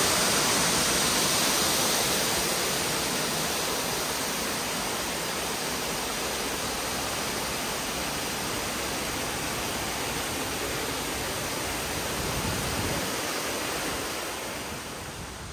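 Steady rush of falling water from a waterfall, loudest at first, easing off after a couple of seconds and fading further near the end.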